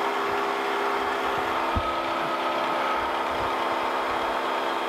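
Wells-Index vertical milling machine running, its spindle turning a milling cutter with a steady machine hum and whine. There is one short knock a little under two seconds in.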